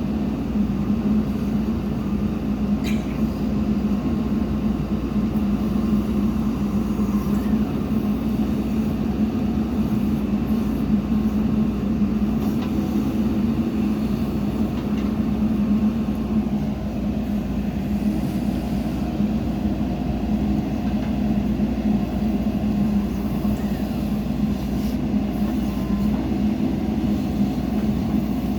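Diesel engine of heavy earthmoving equipment running steadily: a constant low drone with a strong hum.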